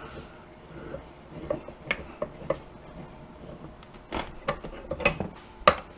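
Scattered metallic clicks and clacks of a cast-iron bench vise being closed on a barbecue grill's gas regulator, the handle turned to clamp it. The clicks come sparsely at first and more often and sharper in the last couple of seconds.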